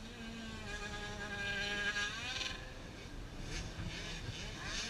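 Dirt bike engines running on a motocross track; one bike holds a steady note, then revs up about two seconds in, and another revs up near the end.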